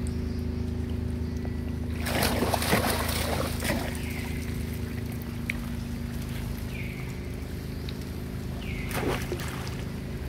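Steady low motor hum with an even pitch throughout, with bursts of rustling noise about two seconds in and again near the end, and a few short falling chirps.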